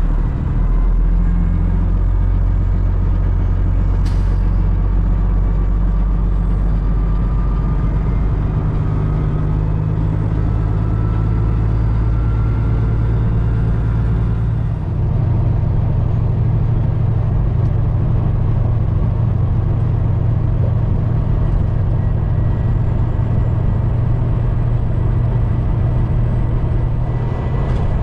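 Peterbilt 389 tanker truck's diesel engine running steadily with a low hum as the truck gets under way. There is a sharp click about four seconds in, and a brief dip and change in the engine sound about halfway through.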